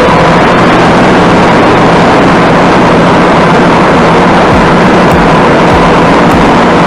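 Massey Ferguson 165's Perkins AD4.212 four-cylinder diesel running steadily and loud, with a thin steady whine above the engine note.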